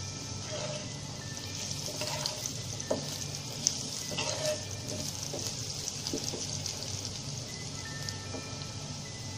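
Potato wedges sizzling steadily in hot oil in a pan, with a few sharp clicks as a spatula turns them, the loudest about three seconds in and again a little later.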